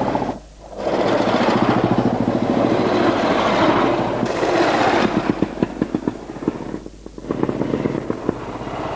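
Royal Enfield motorcycles going past on the road, their single-cylinder engines thumping in a fast, even beat. The beat slows into separate thumps about halfway through, and the sound briefly drops away near the end as the next bike comes up.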